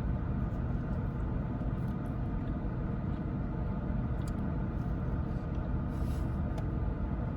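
Steady low background rumble, with a few faint clicks and a brief rustle about six seconds in.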